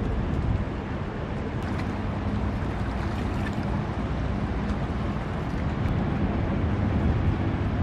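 A steady low hum of a distant motor, with wind buffeting the microphone.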